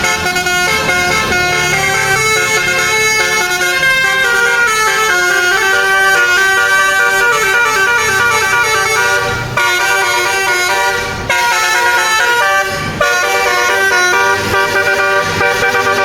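A bus's 'telolet basuri' musical horn playing a melody of fast, stepping notes, broken by three short gaps in the second half.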